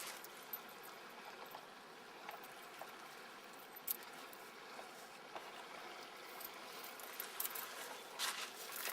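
Quiet outdoor background: a faint steady hiss with a few small scattered clicks and knocks.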